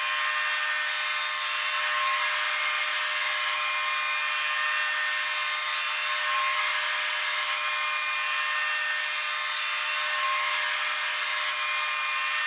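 Portable Wood-Mizer band sawmill running steadily with its blade cutting through a poplar log: a constant high whine over a hiss of sawing.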